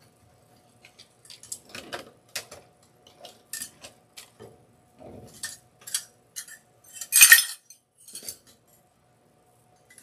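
Small tin milk pails and a wire wreath frame clinking and rattling as they are handled on a table, with one louder clatter about seven seconds in.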